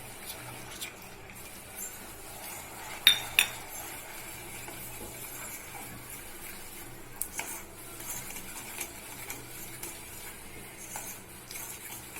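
A spoon stirring ginger-sugar syrup with honey in a pan on the stove, scraping and clinking against the pan, with two sharper knocks about three seconds in and a few more clinks past the middle.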